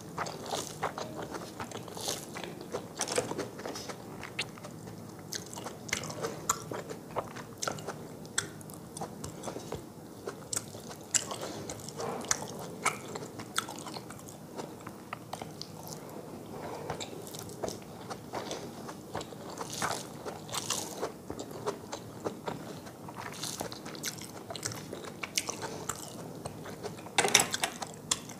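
Close-miked eating: a person chewing mouthfuls of rice and curry, with crunchy bites and many short, irregular clicks.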